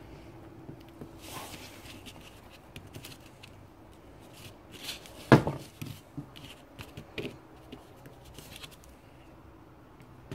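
Hands handling small orange polyurethane suspension bushes and their metal inserts on a cardboard-covered workbench: light rustles and small clicks, with one sharp louder knock about five seconds in as a part is set down.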